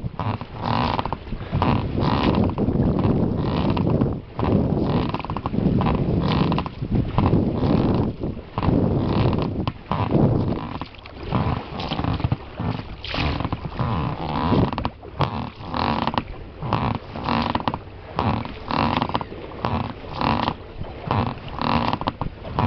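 Rowing an inflatable boat: oar strokes in an even rhythm of about one a second, the blades splashing through the water.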